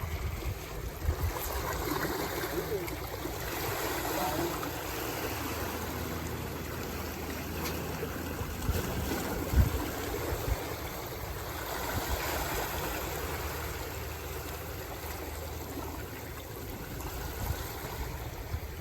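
Steady rushing noise of flowing water, with faint voices in the background early on and a single sharp knock about halfway through.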